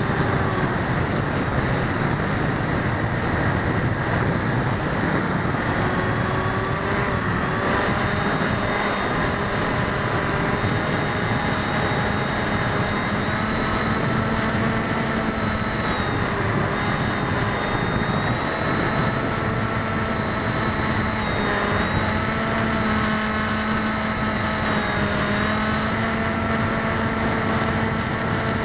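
Electric motors and propellers of an RC model aircraft heard through a keychain camera's own microphone, running steadily with whining tones that drift slowly up and down with throttle over a heavy rush of wind and airflow. The uploader notes the propellers are not balanced.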